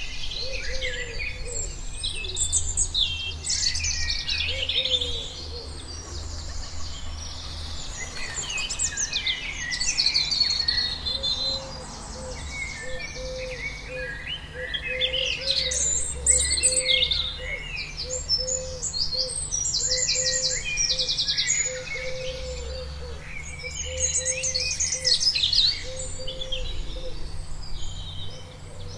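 Several songbirds singing at once, a dense mix of quick high chirps and trills, over a steady low rumble. From about the middle on, a lower note repeats roughly once a second beneath them.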